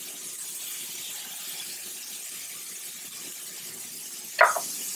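Skillet of trout fillets and broccoli in garlic butter sizzling steadily on the heat while lemon juice is squeezed over it. A short, sharp squeak about four and a half seconds in.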